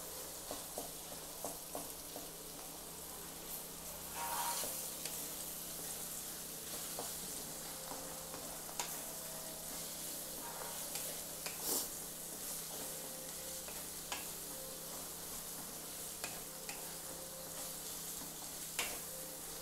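Diced bottle gourd sizzling in oil in a pan on medium flame, stirred with a wooden spatula that scrapes and taps against the pan now and then.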